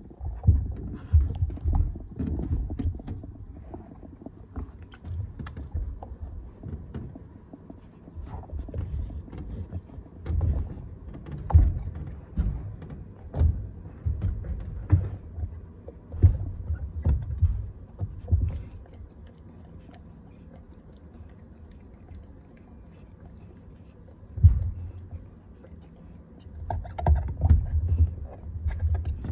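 A Staffordshire bull terrier pawing and chewing a ribbed rubber treat-dispensing toy on a padded blanket: irregular dull thumps and knocks with sharp clicks. The noise eases off a little past the middle, then picks up again near the end.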